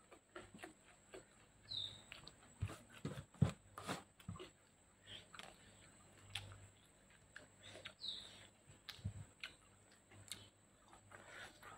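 Close-up mouth sounds of someone chewing and eating with the hands: soft wet chewing and lip smacks, with many small clicks. A short, high, falling bird chirp comes twice, about 2 s in and about 8 s in.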